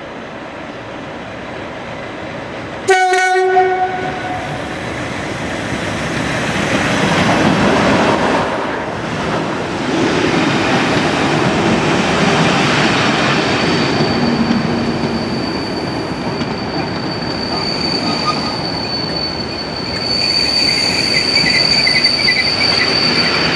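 Colas Rail Class 37 diesel locomotive 37219 gives one short horn blast about three seconds in. After it, the locomotive's English Electric V12 diesel engine runs loudly, its level swelling and easing, with a thin steady high whine from about halfway through.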